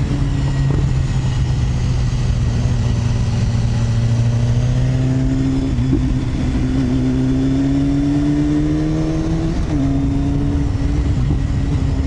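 Sport motorcycle engine running steadily while riding, heard from on board the bike. Its pitch climbs slowly in the second half and drops abruptly about ten seconds in.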